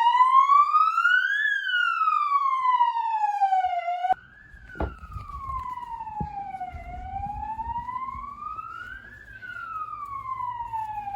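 Electronic police siren sounding in wail mode: one tone sweeping slowly up and down, each rise or fall lasting about two and a half seconds. About four seconds in it drops suddenly in level and keeps wailing, quieter, over a low rumble.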